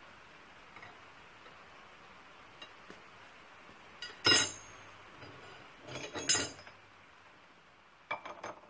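Steel rod and hand tools clinking against a cast-iron milling-machine vise as they are handled and set down: one sharp clink about four seconds in, a couple more around six seconds, and a quick run of lighter clinks near the end.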